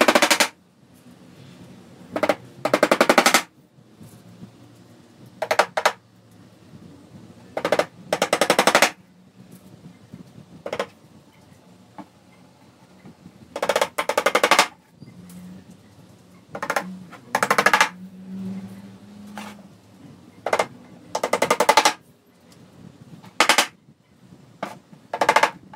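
Hammer driving small nails through a thin hardboard sheet into an MDF strip: about a dozen quick runs of rapid taps, each lasting under a second, with short pauses between.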